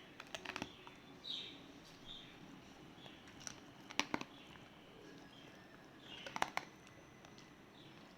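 Dog chewing and crunching food: quick clusters of crisp clicks, about a second in, around four seconds and just past six seconds. Faint bird chirps sound between the bites.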